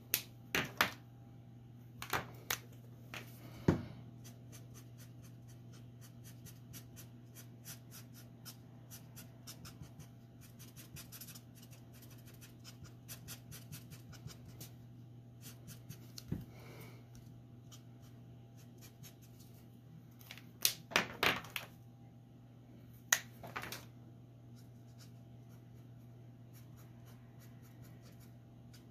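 Copic alcohol marker tips rubbing and scratching on paper in quick, light strokes, with a few sharp plastic clicks as markers are handled and their caps pulled off or snapped on: several near the start, one in the middle and a cluster about two-thirds through. A steady low hum runs underneath.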